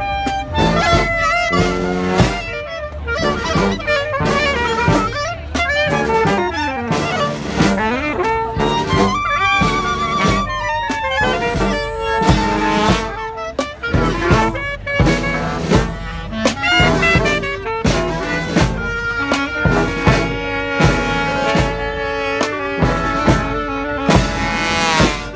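A street marching band of brass, saxophones and drums playing a lively tune, the horns carrying the melody over a steady drumbeat. About ten seconds in a high horn note wavers, and near the end the horns rise together in a quick run.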